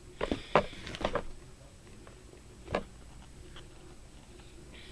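A few short clicks and taps from a leather handbag being handled and looked over: a quick cluster in the first second, then one more near the middle.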